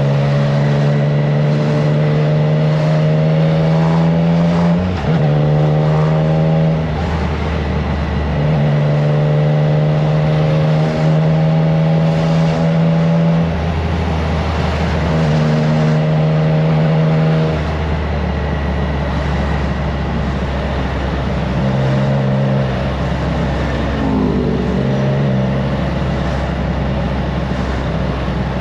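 Triumph Trident 660's inline three-cylinder engine breathing through a FireTong aftermarket exhaust, under way on the road. The engine note holds steady for a few seconds at a time, then dips and changes pitch several times as the rider works the throttle and gears. Wind rush runs underneath.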